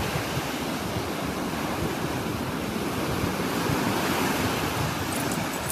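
Ocean surf: small waves breaking and washing up onto a sandy beach, a steady rush of water, with wind rumbling on the microphone.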